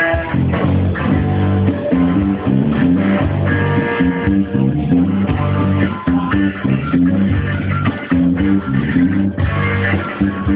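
Bass guitar and guitar playing a funk groove together, with the bass line entering strongly just after the start.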